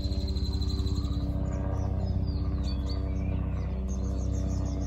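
Songbirds in a bush giving scattered short chirps and whistled notes, over a steady low hum.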